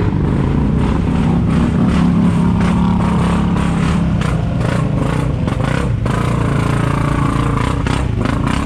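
Polaris Sportsman 570 ATV's single-cylinder engine running loud under load as the quad churns through a mud hole, with irregular clattering over it.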